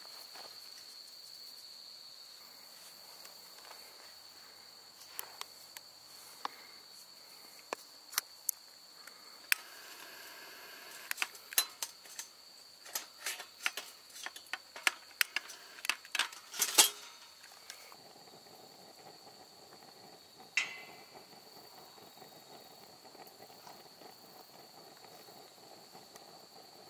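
Insects trilling with a steady, high, unbroken tone. Over it comes a run of sharp clicks and knocks between about five and seventeen seconds in, the loudest near seventeen seconds, and one sharp clink with a short ring a few seconds later.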